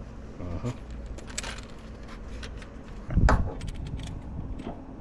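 Scattered light clicks and clinks of small objects being handled, with one heavier thump about three seconds in.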